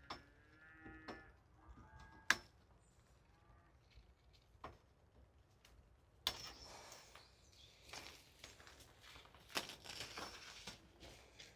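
Mesh shade netting rustling as it is tugged and pulled down, with the rustling building from about six seconds in. Before that come a few sharp clicks and, in the first two seconds, a faint pitched call.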